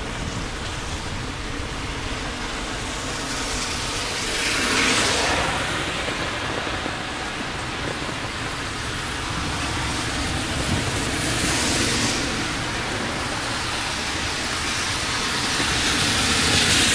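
Steady heavy rain, with cars passing on a wet road: the hiss of tyres on wet tarmac swells and fades three times, roughly every six or seven seconds.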